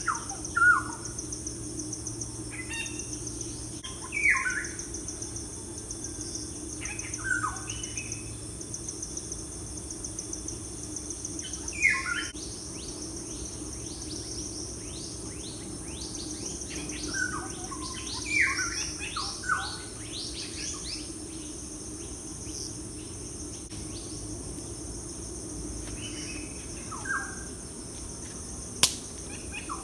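Songbirds chirping in short, quick phrases that come every few seconds, with a busier run of chirps a little past the middle, over a steady high insect trill. A single sharp click comes near the end.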